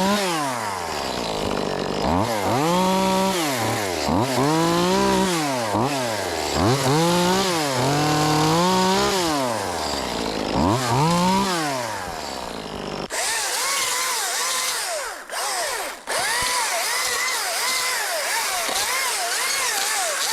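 Top-handle chainsaw cutting wood, its pitch rising and dropping again and again as it is throttled up and loaded in the cut. About two-thirds of the way through the sound changes abruptly to a higher, thinner saw sound.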